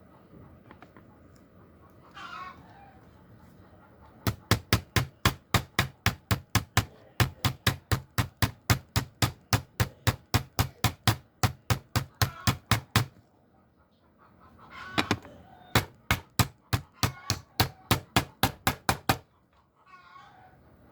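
Rapid, even knocking, about four sharp strikes a second, in a run of some nine seconds and then a shorter run of about three seconds. A chicken clucks and crows in the background before, between and after the runs.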